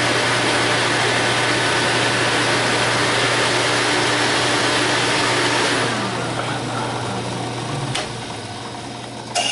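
Shop vacuum and benchtop drill press with a sanding drum running steadily. About six seconds in they are switched off and wind down with a falling hum. A click comes about eight seconds in, and another near the end.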